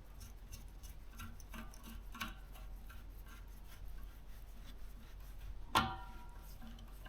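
Faint scattered ticks and rubbing of a screwdriver and wires being worked at the terminal screws of an air compressor's pressure switch, with one sharper metallic click about six seconds in.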